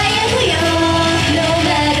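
Idol pop song performed live, with singing over the band music and the voices holding long notes.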